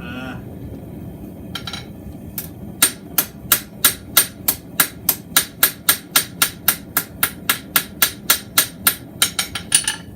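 Hand hammer forging a mild-steel bar on an anvil: a few scattered blows, then a steady run of strikes at about three a second, ending in a quicker flurry of blows.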